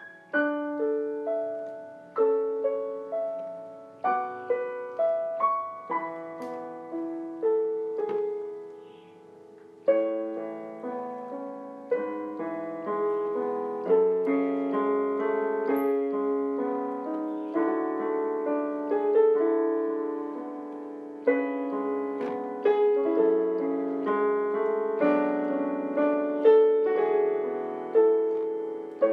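Background piano music: a gentle melody of single struck notes that fills out into fuller, denser playing about ten seconds in.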